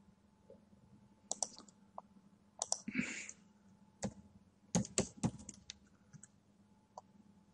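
Keys being typed on a computer keyboard: short sharp clicks, a few at a time with pauses between.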